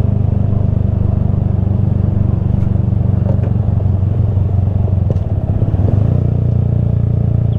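Honda Grom's small single-cylinder four-stroke engine running steadily as the motorcycle is ridden slowly; the engine note dips briefly a little past five seconds in, then picks up again.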